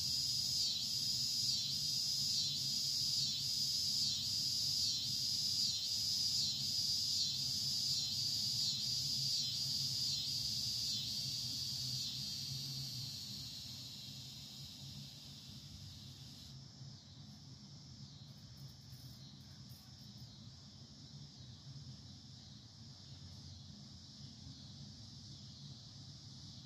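Insects calling outdoors: a high pulsing buzz, about two pulses a second, that fades out about halfway through. A low steady hum runs underneath.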